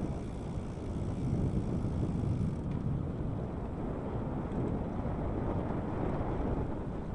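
Wind buffeting the microphone as a bicycle rolls along a paved path: a steady low rumble.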